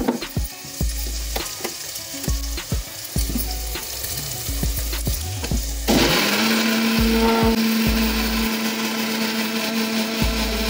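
Onions sizzling in a pan with the clicks and scrapes of stirring, then about six seconds in a mixer grinder starts and runs steadily, grinding a wet masala paste of ginger, garlic, whole spices and tomato.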